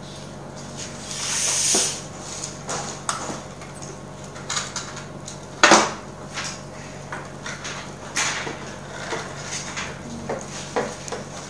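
A homemade toy being handled and fiddled with: irregular light clicks and knocks, a brief rustle about a second in, and one sharp knock near the middle.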